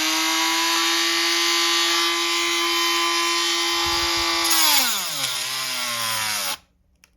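A battery-powered rotary tool for cutting plastic runs with a steady high whine. After about four and a half seconds its pitch drops steeply as the motor slows, and it stops abruptly near the end. The battery is going flat.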